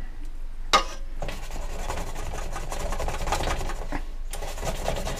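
Buttermilk-soaked chicken being dredged by hand in a steel bowl of flour, a dry rubbing and rasping sound. A single sharp knock comes just before it, about a second in.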